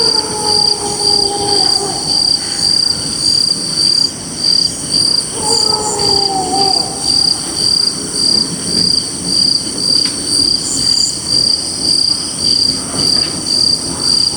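Crickets chirping in a steady, even pulse over a constant higher insect trill. A drawn-out, slightly falling tone sounds at the start and again about five and a half seconds in.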